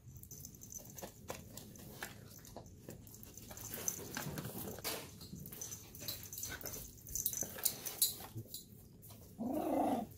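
Chihuahua chewing a hand-fed treat: scattered small crunches and clicks. Near the end a dog gives one short whine that rises and falls in pitch.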